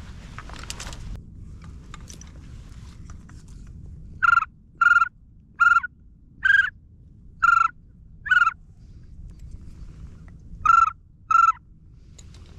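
Duck call blown in quacks like a mallard hen: six short, loud quacks, each dipping slightly in pitch, then a pause and two more quacks near the end.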